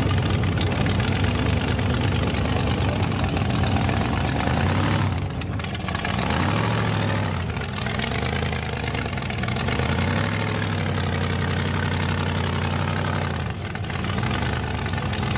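Two drag-race engines idling loudly side by side at the starting line, a supercharged rat rod and a turbocharged Chevy pickup. Their idle note shifts in pitch a few times as they wait to launch.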